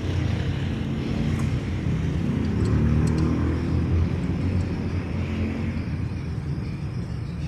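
Car engine idling steadily, with a few light clicks of parts being handled.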